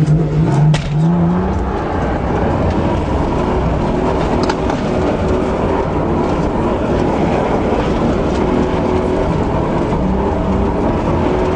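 Car engine rising in pitch over the first second or two, then a steady loud rush of engine and running noise as the car keeps going.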